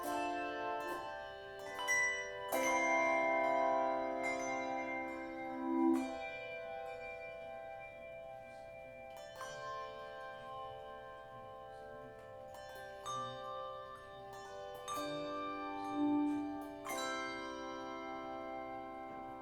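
Slow instrumental music: a series of held chords, each struck together and sustained for a few seconds, with no singing.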